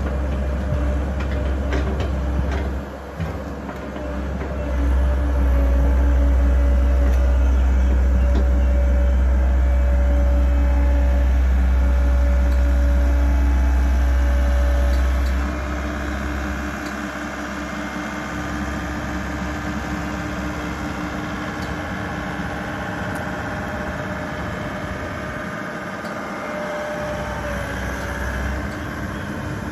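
Komatsu hydraulic excavator's diesel engine running under load as it digs rubble and swings a loaded bucket, a steady drone with a few knocks of the bucket near the start. The drone is loudest for the first half, then drops to a lower level about halfway through.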